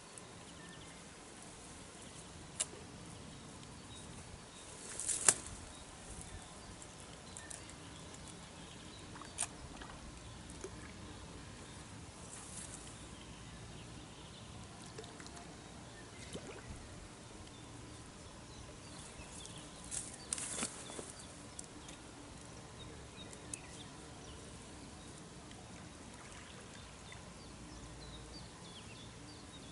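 Quiet riverside outdoor background while a hooked carp is played on a rod, with a few sudden sharp sounds, the loudest about five seconds in, and a short spell of splashing about twenty seconds in.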